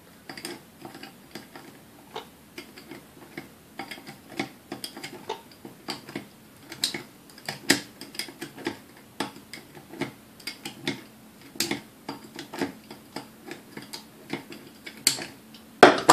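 Irregular small metallic clicks and taps of steel needle-nose pliers working against the gears and metal parts inside a vintage Sunbeam Mixmaster's housing. Right at the end comes a louder clatter as the pliers are put down on the workbench.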